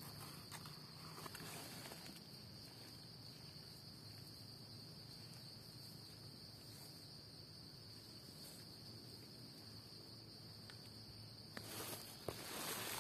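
Steady, faint high-pitched drone of insects in the forest. Near the end, louder rustling and crunching of dry leaves underfoot as someone walks.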